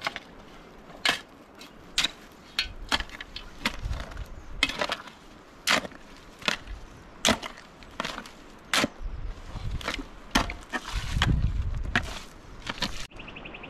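Wood being struck over and over: a string of sharp, irregular knocks, roughly two a second, with a low rumble between strikes about eleven seconds in.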